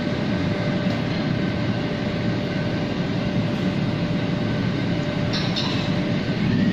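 Gas wok burner running under a steel wok as its cooking oil heats: a steady low rush with a faint steady hum over it, and a couple of light ticks about five seconds in.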